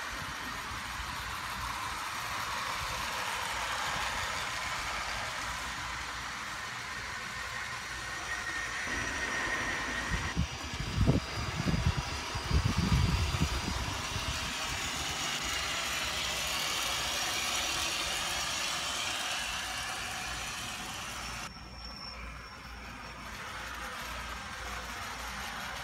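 Toy Eggliner model trains running on their track, a steady whir and rattle of small motors and wheels. A louder, uneven low rumble comes for a few seconds around the middle.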